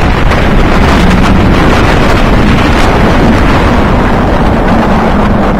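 Loud, steady wind noise blasting the microphone over the rumble of a Bolliger & Mabillard hyper coaster train running at speed on its steel track.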